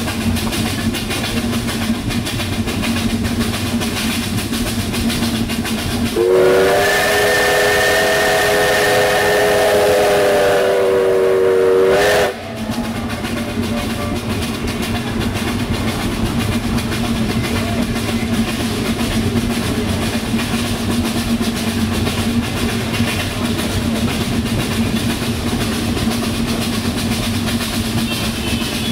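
Steam locomotive whistle blown in one long blast of about six seconds, several notes sounding together as a chord, cutting off sharply. The train's steady running noise goes on beneath it and after.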